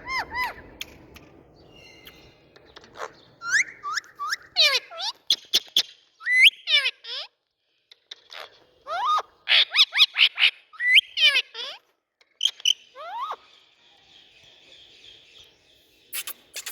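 Indian ringneck parakeet calling in a series of short, sharp squawks that slide down in pitch, coming in quick clusters, with a few clicks and a softer buzzy chatter near the end.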